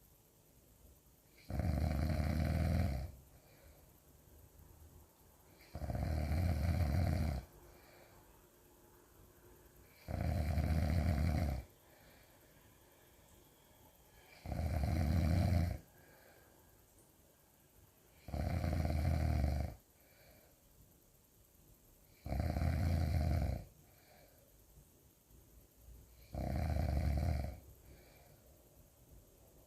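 Loud snoring, one long snore about every four seconds, seven in all, with quiet gaps between.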